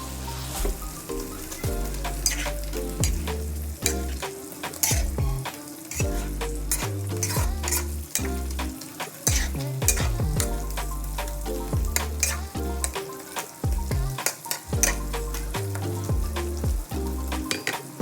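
Stir-frying in a pan: food sizzling while a spatula stirs it, with frequent clacks and scrapes against the pan. Background music with a bass line plays underneath.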